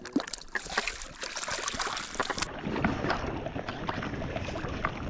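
Lake water sloshing and splashing close by, with many small clicks and knocks.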